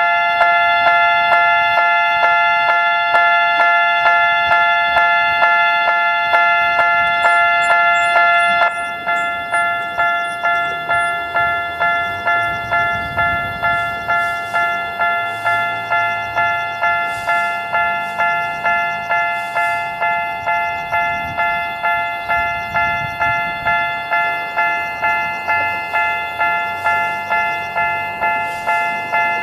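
Japanese railroad level crossing's electronic warning bell ringing the 'kan-kan' alarm, a steady repeating ding. About nine seconds in it drops in level and keeps ringing.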